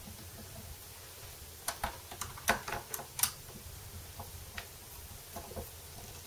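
Short sharp clicks and ticks of a hand screwdriver driving a neck screw into a Dean Razorback guitar's body, several in a quick cluster about two to three seconds in and a few fainter ones later, over a faint low hum.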